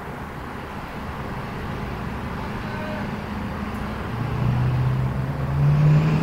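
City street traffic noise, with a vehicle's low engine drone coming in about four seconds in and growing louder, edging slightly up in pitch.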